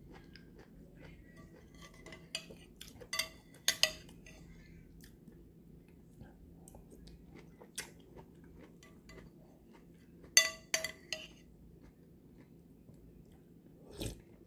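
Metal spoon clinking against a white bowl: a few sharp, ringing clinks in two short clusters, about 3 to 4 seconds in and again about 10 to 11 seconds in. Quieter chewing of pomelo sounds between them.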